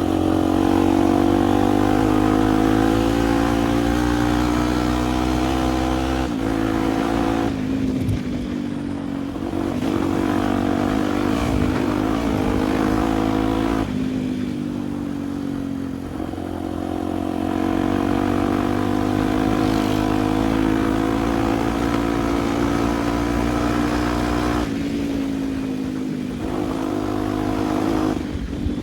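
Single-cylinder Honda Tornado dirt bike engine running under way. The engine note holds for several seconds at a time, then drops and picks up again a few times as the throttle or gear changes.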